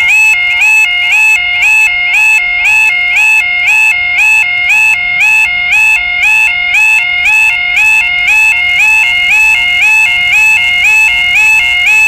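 Level crossing warning alarm sounding its electronic two-tone yodel, alternating a high and a low tone about twice a second. It warns that the crossing is closing for an approaching train.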